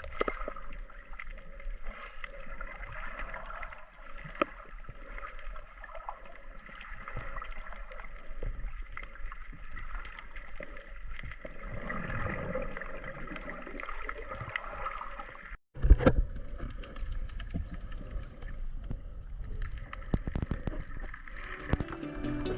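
Underwater sound of snorkelling, picked up by the camera: gurgling water and bubbles over a steady hum. The sound cuts out briefly about 16 seconds in, followed by a sharp loud knock.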